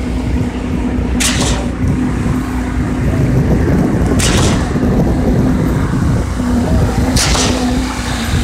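Truck-mounted concrete pump running on a construction deck: a steady low engine rumble and hum, broken by a short hiss about every three seconds as the pump cycles.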